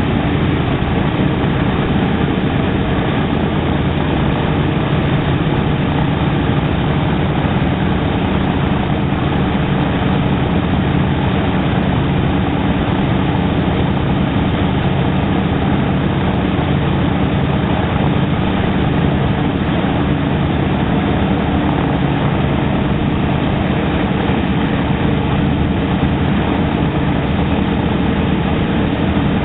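B-17's Wright R-1820 Cyclone radial engines running steadily: a loud, even propeller-engine drone.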